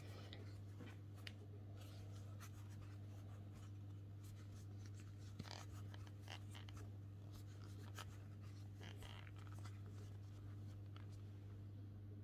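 Faint scratching and rubbing of a crochet hook drawing thick T-shirt yarn through the stitches while working a round of slip stitches, many small scrapes and ticks over a steady low hum.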